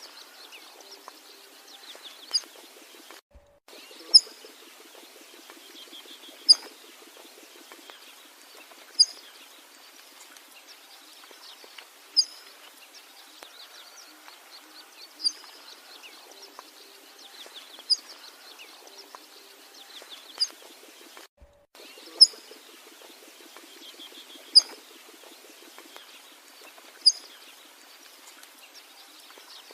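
A bird's short, sharp, high call repeated about every two and a half seconds, twelve times, over a faint steady background of other calls. The sound cuts out completely for a moment twice.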